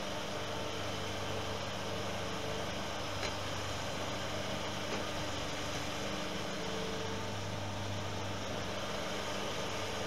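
Skid steer engine running steadily with a low hum, over a constant hiss. The engine note eases slightly about three seconds in and picks up again around seven seconds.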